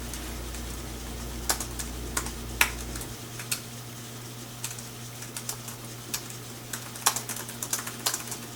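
Computer keyboard being typed on: irregular key clicks, several in quick bursts, over a steady low hum whose deepest part cuts out about three seconds in.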